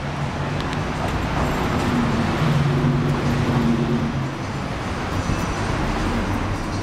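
City street traffic noise, with a vehicle engine's low steady hum that is strongest in the middle and fades after about four seconds.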